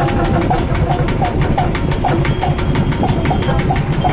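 Live folk music on plucked string instruments: a long-necked lute, dotara-style, picks short repeated notes, two or three a second, over a fast, low, twangy rhythmic pulse.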